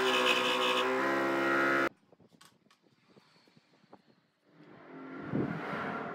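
Scroll saw running and cutting through a small piece of wood, its motor a steady hum, stopping abruptly about two seconds in. After a near-silent stretch with a few faint ticks, wood glue is squeezed from a plastic bottle near the end.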